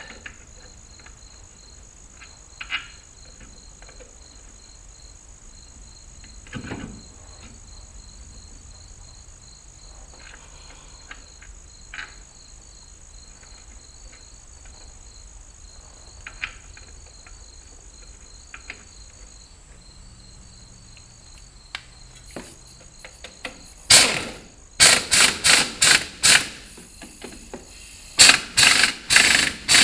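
Crickets chirping steadily, with a few scattered knocks. Near the end come two quick runs of loud, sharp strokes, about three a second, from hand-tool work on the wheel.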